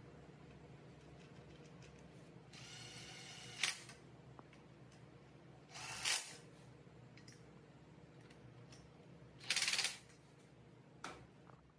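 Short hissing or scraping bursts and a few sharp clicks over a faint steady hum, the loudest burst about two thirds of the way through.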